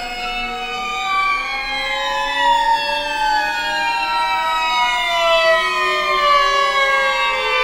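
String quartet of two violins, viola and cello playing slow overlapping glissandi: several held notes slide up and down and cross one another, without a beat.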